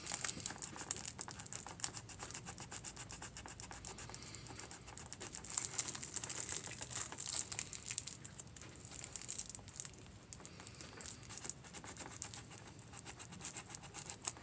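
Stiff sailcloth crinkling and crackling with many small, rapid ticks as the stitching on a sail slide's strap is cut with a hobby knife and the glued strap is peeled away from the sail.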